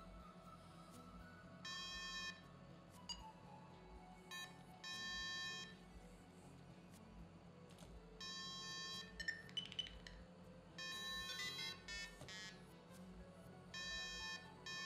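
Short electronic beeps from a flight computer's built-in variometer buzzer, each about half a second long and coming every three seconds or so. About nine seconds in there is a quick run of rising chirps.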